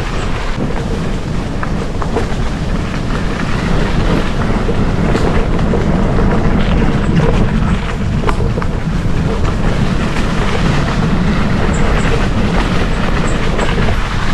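Gravel bike riding over a rough gravel track: a steady rumble from its 650b×43 Panaracer GravelKing tyres, with scattered rattles and clicks from stones and the bike.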